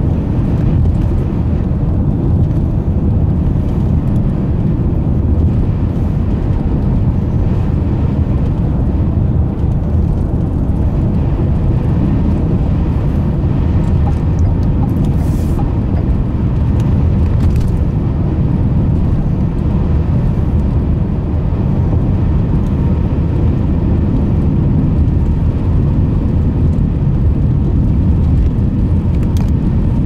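Steady low rumble of a car driving at highway speed on a snow-covered road: continuous tyre and road noise with the engine underneath.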